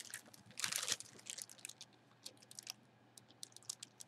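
Clear plastic bag crinkling as the jersey sealed inside it is handled, in short, irregular rustles with a louder one just under a second in.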